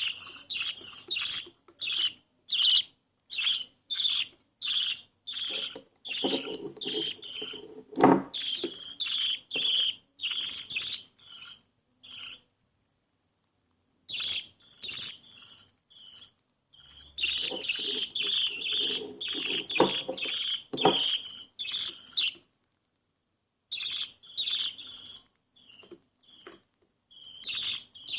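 Baby budgerigar (budgie) chick making begging calls while being fed: rapid, repeated high raspy cheeps, about two or three a second, breaking off twice for a second or two.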